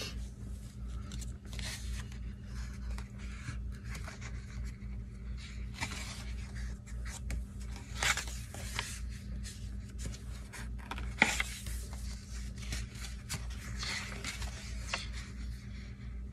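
Paper handling: sticker sheets and the pages of a sticker book rustling and sliding as they are flipped through, with a few sharper scrapes, over a steady low hum.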